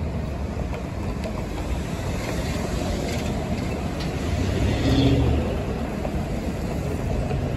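Steady street-traffic rumble at an intersection, with a pickup truck driving past close about five seconds in, the loudest moment.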